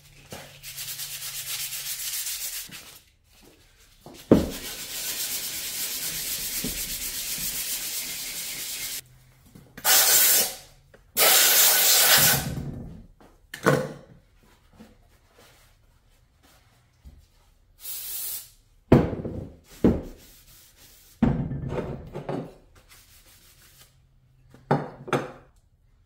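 Sandpaper rubbed by hand over a metal engine-mount plate, roughing the surface for epoxy: a long stretch of steady sanding for most of the first nine seconds, broken by a sharp knock about four seconds in, then a series of shorter scrubs and knocks as the parts are handled.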